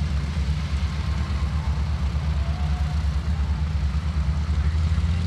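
North American SNJ-6 Texan's nine-cylinder Pratt & Whitney R-1340 radial engine and propeller running in flight, heard from the ground as a steady low drone.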